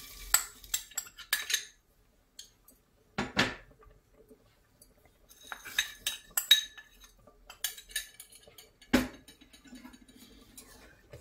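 Clinking and scraping of utensils against a glass bowl and the rim of a stainless steel pot as jaggery is tipped in. The clinks come in short runs, with one louder knock about nine seconds in.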